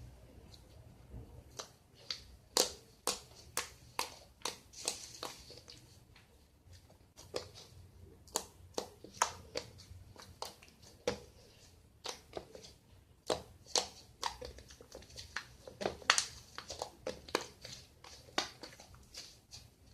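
Homemade clay slime (glue slime kneaded with bouncing putty) squeezed and pressed by hand, giving a run of sharp clicks and pops, about one or two a second, with a short lull a third of the way in.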